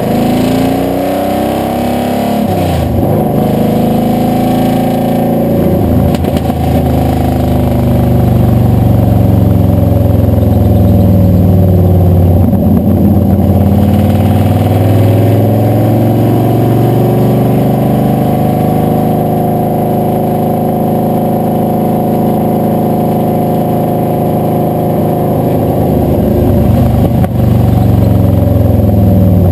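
Blueprint Engines 540 big-block Chevy V8 and its exhaust heard from beneath the moving truck. The engine note rises and falls several times, with sharp drops in pitch about three and six seconds in, over steady road and wind noise.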